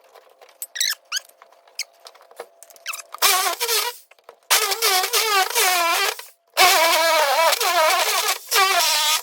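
Power saw cutting an opening through a wooden wall, run in four bursts with a high whine that wavers in pitch under load, after a few light clicks.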